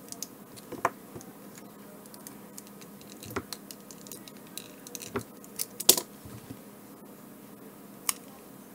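Scattered small clicks and taps of a battery cell, its circuit board and small tools being handled on a workbench, the loudest about six seconds in, over a faint steady hum.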